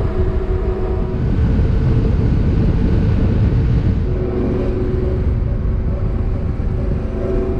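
Motorcycle engine running at steady road speed under heavy wind rumble on the bike-mounted microphone. The engine tone changes about halfway through.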